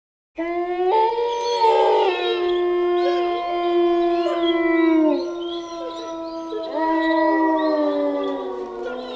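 Wolves howling: several long, overlapping howls at different pitches, held steady and sagging downward at their ends. They start suddenly about half a second in, and a new round of howls begins about seven seconds in before fading.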